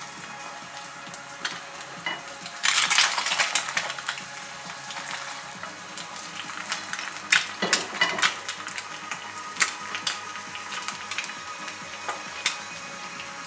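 Egg frying in hot oil in a Lodge cast iron skillet, a steady sizzle and crackle that surges loudly for about a second, about three seconds in, as the pan is shaken. Several sharp knocks follow later, from the skillet being moved on the stove grate.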